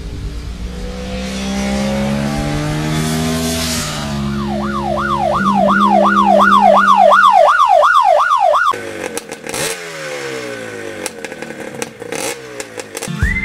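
Motorcycle engine accelerating, its pitch climbing through several gear changes, then a quick repeated rise-and-drop in pitch about two to three times a second, then falling pitches with clattering near the end.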